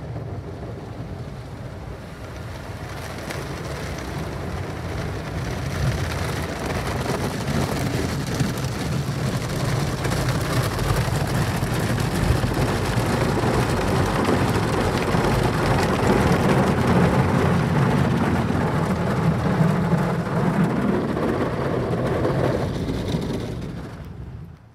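Ryko Softgloss XS automatic car wash scrubbing the car, heard from inside the cabin: soft-cloth brushes slapping and water spraying against the windshield in a loud, rain-like wash of noise. It grows louder over the first several seconds and falls away near the end.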